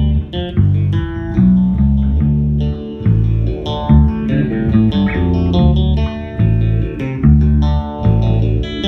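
Electric guitar and electric bass guitar playing an instrumental country-blues passage with no vocals, the bass holding strong, evenly paced notes under the guitar.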